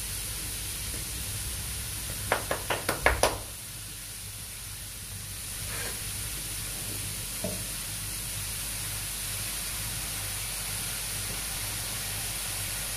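Fish frying in oil in a pan over a gas burner, a steady sizzle. A quick run of about six sharp knocks comes a couple of seconds in.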